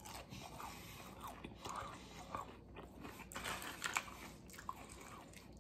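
Faint chewing of a mouthful of fried onion rings, with small irregular crunches and one slightly louder crunch about four seconds in.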